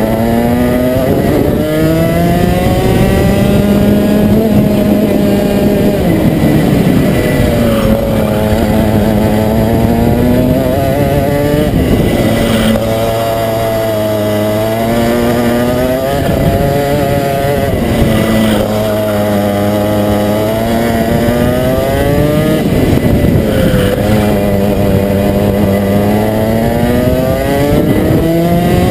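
Rotax Max 125 cc two-stroke kart engine heard close up on board, running hard: its pitch climbs for several seconds at a time and drops sharply, over and over, as the driver accelerates out of corners and lifts for the next one.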